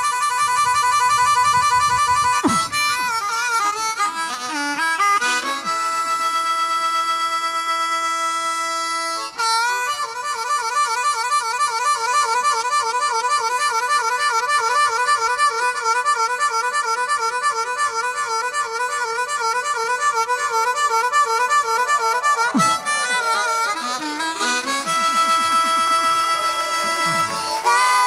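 Blues harmonica played solo, cupped in the hands against a vocal microphone: sustained chords with bent notes, then a long passage of fast wavering chords, then more bends and held chords near the end.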